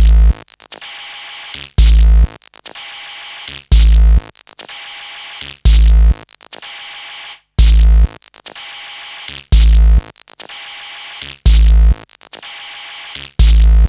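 Electronic background music: a heavy bass hit about every two seconds, each followed by a steady synth chord.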